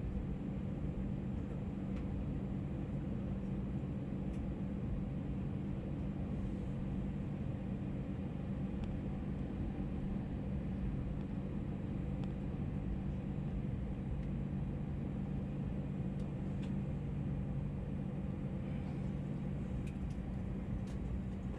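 Steady low hum inside an Airbus A320 cabin with the engines at idle near the end of taxi to the gate, with a few faint clicks near the end.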